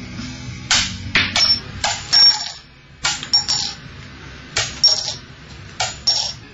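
Clinking coins and bright cash-register-like rings, sharp metallic hits coming in uneven clusters every second or so.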